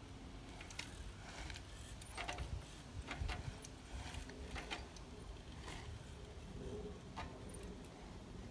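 Mountain bike's rear hub and drivetrain giving short, irregular clicks and ticks as the rider rocks the pedals back and forth to hold a track stand, over a low wind rumble on the microphone.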